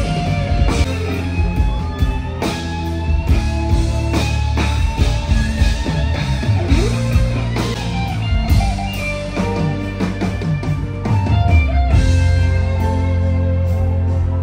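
Live rock band music: electric guitar lines over bass and a drum kit beating steadily.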